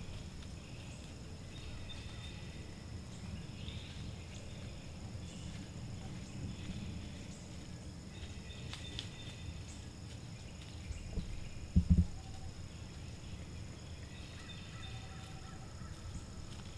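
Daytime woods ambience: insects holding a steady high-pitched drone over a low rumble, with short chirping calls coming and going. One dull thump about twelve seconds in.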